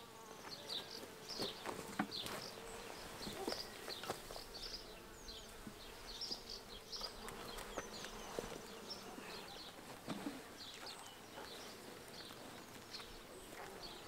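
Honeybees buzzing around an opened hive, a steady hum, with a few light knocks of wooden hive frames being handled.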